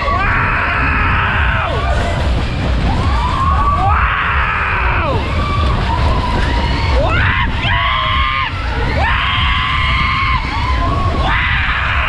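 Riders screaming and yelling in repeated bursts of about a second each on a fast-spinning Matterhorn fairground ride. Under them is a constant low rumble of wind buffeting the onboard camera.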